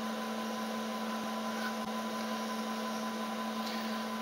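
Milling machine spindle running a 5 mm carbide endmill, a steady hum with a strong low tone.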